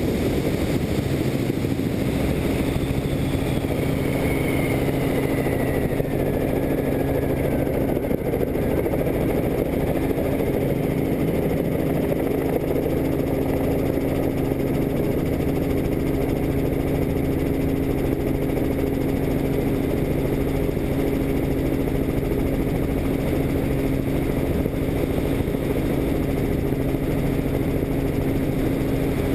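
A helicopter's engine and rotor running steadily in flight, giving a constant low hum. A fainter high whine slides down in pitch over the first several seconds.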